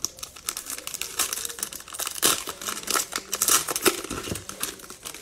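Cellophane wrapper of a 2021 Mosaic Football cello pack of trading cards being torn open and crumpled by hand: a dense, irregular crinkling crackle.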